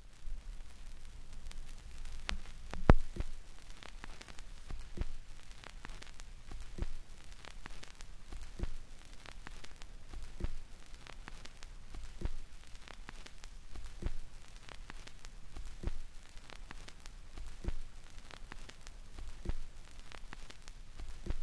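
Vinyl record surface noise: faint hiss and crackle, with a sharp click repeating about every 1.8 seconds, once per turn of a 33⅓ rpm record, as the stylus rides on after the music has ended. The click about three seconds in is the loudest.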